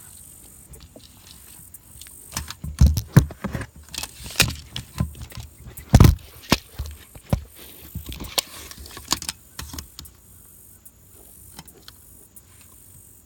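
Pieces of split cedar being handled and knocked together: an irregular run of wooden knocks and clatters lasting about eight seconds, the loudest about three and six seconds in.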